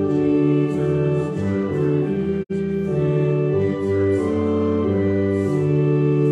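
Church organ playing a hymn in sustained chords, with voices singing along. The sound cuts out for an instant about two and a half seconds in.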